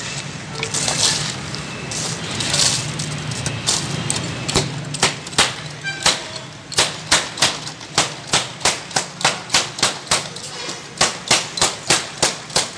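Glass soda bottles clacking sharply as a street soda vendor opens and strikes them. The clacks start scattered and settle into a quick, even beat of about three a second in the second half.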